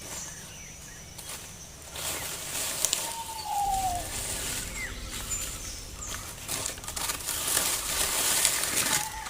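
A bird gives a short whistled call that falls in pitch, about three seconds in, and a similar call near the end, with a few faint high chirps. Under the calls there is a steady rustling and crackling that grows louder about two seconds in.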